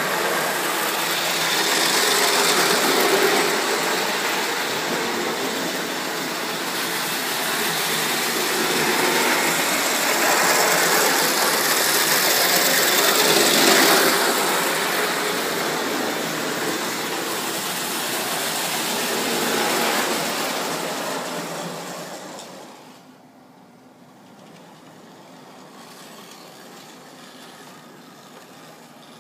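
A Lionel 1911 standard gauge electric locomotive runs on three-rail tinplate track with its rebuilt motor running smoothly, pulling early tinplate cars. It gets louder and fainter as it passes close, peaking twice, then falls away sharply a little over three-quarters of the way through to a faint steady running sound.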